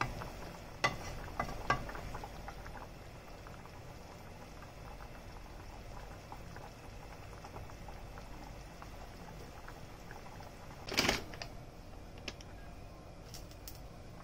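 Broth boiling in a pan while the foam is skimmed off with a spoon, with a few light clicks of the spoon on the pan in the first couple of seconds. A louder, brief clatter about eleven seconds in.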